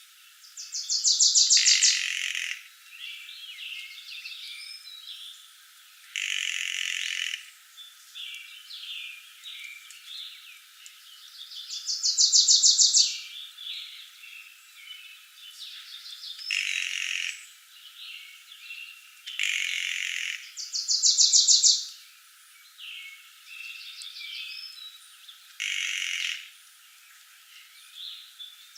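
Woodland bird chorus of varied chirps, with three loud, high, rapid trills of about a second each and three brief hissing bursts. The sound has no low end, as if filtered.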